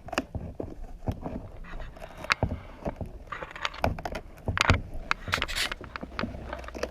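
Irregular knocks, sharp cracks and short crackling scrapes of a fiberglass shell being worked and pried off its mold, the suction and tape letting go.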